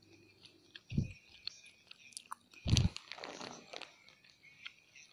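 Close-up eating sounds: a person chewing and crunching food. There are two heavier bites about one second in and just under three seconds in, the second the loudest, followed by crackly chewing and small wet clicks.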